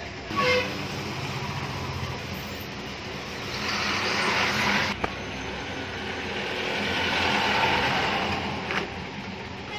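Steady rushing noise that swells and fades twice, like road vehicles passing by, with a couple of light clicks.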